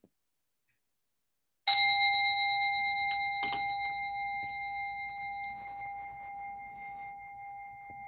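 A singing bowl struck once, ringing with a clear, slowly fading tone and several higher, unevenly spaced overtones. A couple of faint knocks follow shortly after the strike.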